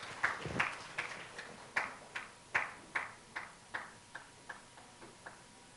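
Scattered hand claps dying away: separate sharp claps about two or three a second that grow fainter and stop about five seconds in.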